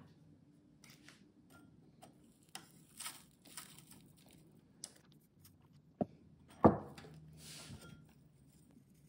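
Ground spice being sifted through a fine metal mesh sieve: light rustling and scattered small taps, with two sharper knocks of the sieve a little past halfway, followed by a short rustling hiss.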